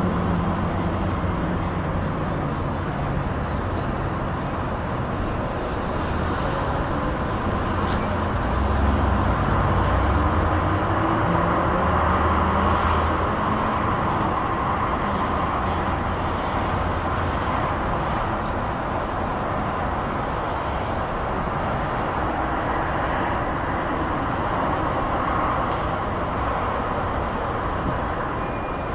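Steady wash of distant motorway traffic: tyre and engine noise from many vehicles blended together over a low rumble. It swells a little between about eight and thirteen seconds in.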